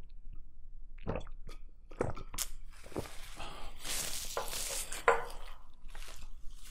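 Close-miked swallowing as a man drinks from a glass jar, with a few separate clicks, then a stretch of crackling rustle and a sharp louder sound about five seconds in.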